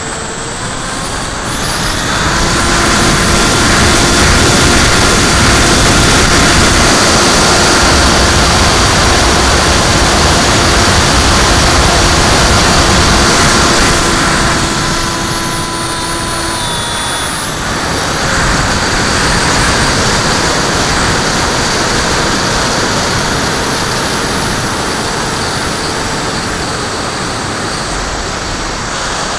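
Electric motor and propeller of a HobbyKing Skyfun model plane, a steady whine heard from its onboard camera over heavy wind rush. The whine climbs about two seconds in as the throttle opens, holds, then drops away about fifteen seconds in, leaving mostly wind noise with a fainter motor tone.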